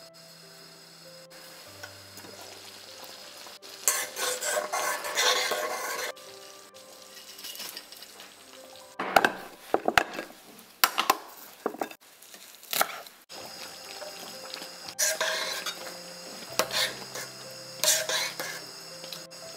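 A run of short kitchen sounds: a steel ladle stirring and scraping thick kadhi in a stainless-steel kadai, with sharp clicks and knocks of kitchenware in between.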